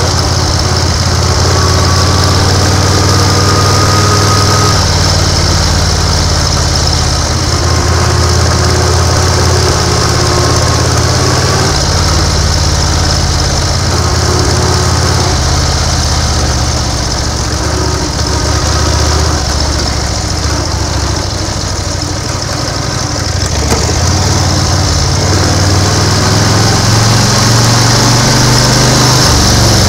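1930 BSA 770 cc V-twin motorcycle engine running steadily in second gear at low road speed, its ignition slightly retarded to quieten piston slap. It eases off briefly about two-thirds of the way through, then pulls harder again.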